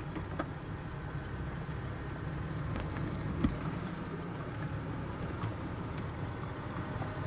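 Steady low rumble of a vehicle in motion, heard from inside it, with a single sharp knock about three and a half seconds in.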